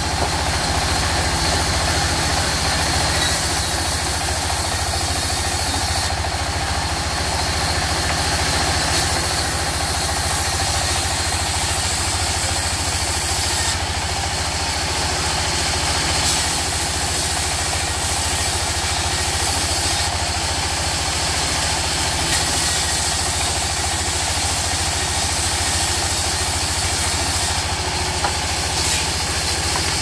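Sawmill band saw running steadily while a wooden slab is fed through the blade to cut boards, with a constant low hum under the cutting noise. The high cutting hiss shifts every few seconds as each pass goes through.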